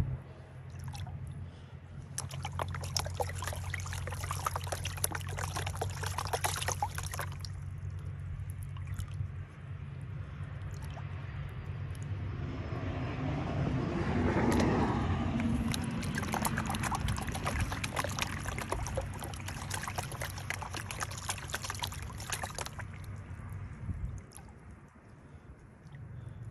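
Water sloshing and splashing in a green plastic gold pan as it is swirled and dipped in shallow water, with muddy water and sediment pouring off its rim, in two long spells of splashing. This is the washing stage of gold panning, with the lighter top layer of gravel washed out of the pan.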